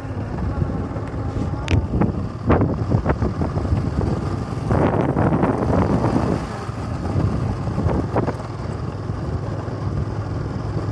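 Motorcycle engine running steadily while riding over a sandy field, with wind buffeting the microphone in gusts.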